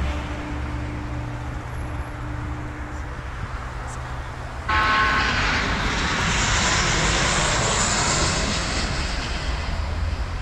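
Jet airliner engines on approach, with a low rumble that turns abruptly louder about halfway through into a loud whining roar.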